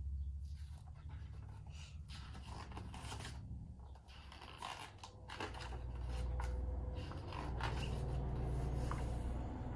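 Pages of a picture book being opened and turned, a series of short paper rustles and scrapes over a low steady hum.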